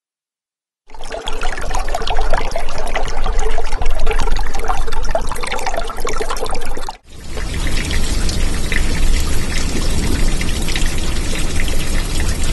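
Loud water-like pouring and trickling noise with a low rumble under it. It starts abruptly about a second in, breaks off sharply for an instant just before seven seconds, then resumes with heavier rumble.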